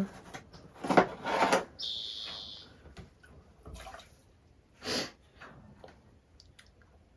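Scattered handling noises at a potter's wheel: brief rustles and knocks as tools are picked up and moved, with a hiss of about a second around two seconds in.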